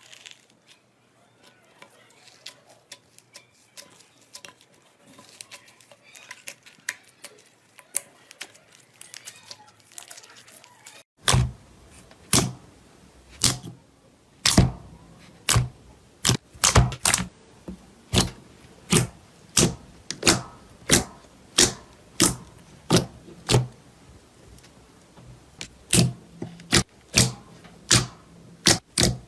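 Slime being squeezed and poked by hand: faint soft crackling at first, then about eleven seconds in a run of loud, sharp popping clicks, one or two a second.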